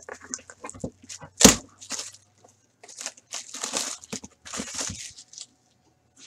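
Plastic shrink-wrap being torn and crinkled off a sealed hockey card box, in a run of short ripping and crackling bursts, with one sharp snap about a second and a half in.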